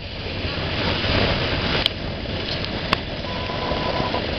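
Motorboat running across open water: steady engine, water and wind noise buffeting the microphone, with two sharp knocks about two and three seconds in.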